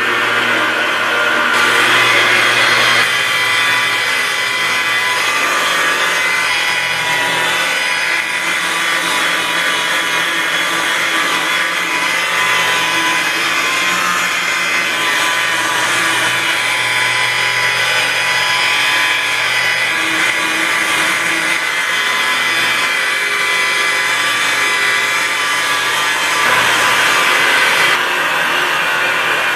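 Electric rotary polisher running steadily as its foam pad buffs car paint, its tone shifting a few times.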